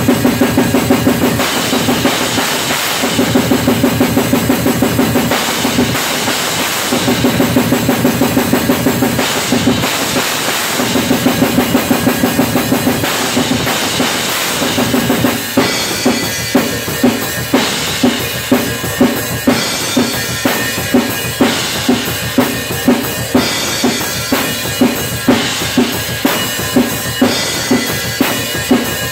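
Acoustic drum kit played solo: fast, dense runs of strokes on drums and bass drum broken by short pauses, then from about halfway a steadier pattern with a strong accent somewhat under twice a second under ringing cymbals.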